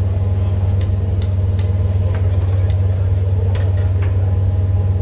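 A large engine running steadily with a deep, even hum, while several sharp metallic clinks and knocks sound at scattered moments.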